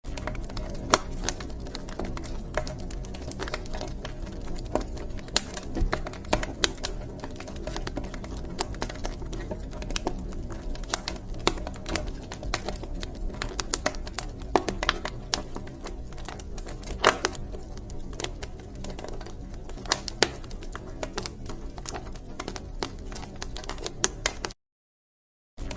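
Wood fire crackling in a fireplace: a steady low rustle with frequent sharp pops and snaps at irregular intervals. The sound cuts out to silence for about a second near the end.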